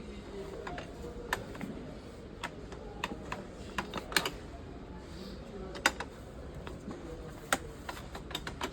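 Irregular sharp clicks and taps, a dozen or so and unevenly spaced, some in quick pairs, over a steady low background hum.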